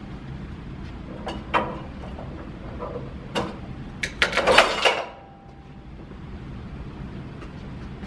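Iron weight plate being loaded onto the sleeve of a Smith machine bar: a couple of single knocks, then a burst of metal clanking and scraping about four to five seconds in, over a steady low hum.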